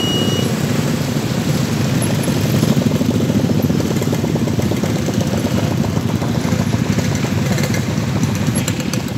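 Small motorcycle engine idling close by, a steady fast even pulsing that runs without a break.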